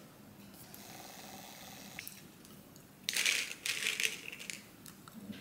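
Capsules rattling in a supplement bottle as it is handled and opened: a few short rattling bursts about three seconds in, after a quiet stretch.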